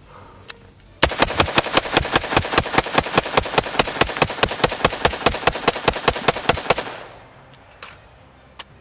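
A 14.5-inch mid-length AR-15 fired in rapid succession: some thirty shots in about six seconds, about five a second, a magazine dump. A single click comes before the string, and a knock and a click come near the end.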